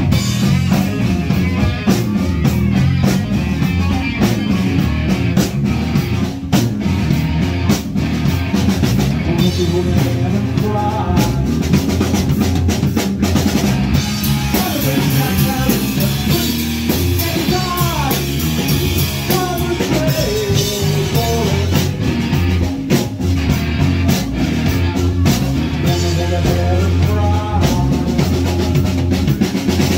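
Punk rock band playing live: drum kit, electric guitars and bass at full volume, with a melodic line bending in pitch through the middle of the stretch.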